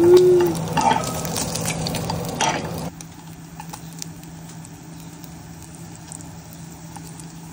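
Kitchen clatter of breakfast being made: light clicks and pattering of utensils and cookware over a steady hum. The hum cuts off abruptly about three seconds in, leaving only occasional faint clicks.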